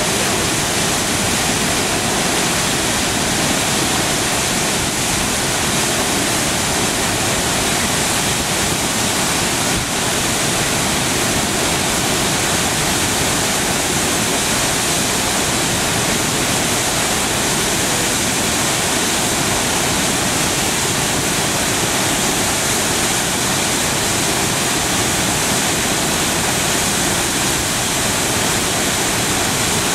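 Krimml Waterfalls' middle tier: falling water rushing in a loud, steady roar with no breaks.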